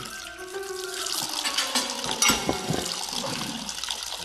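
Orange juice pouring in a thin steady stream into a glass jar, with a sharp knock about two seconds in.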